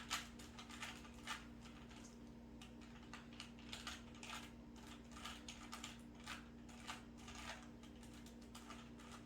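A 3x3 Rubik's cube being twisted: an irregular run of faint, quick plastic clicks as its layers turn, over a steady low hum.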